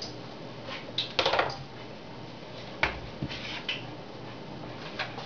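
A plastic bucket lid clattering and knocking as it is handled and set down about a second in. Then a few single clicks and light rustling as a hand works inside the plastic bucket, over a faint steady low hum.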